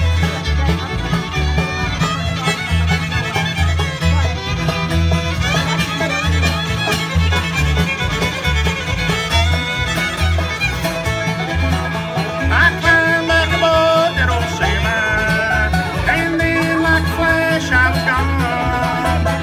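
Bluegrass band playing live in an instrumental break: the fiddle leads over banjo, acoustic guitar and a steady upright-bass beat.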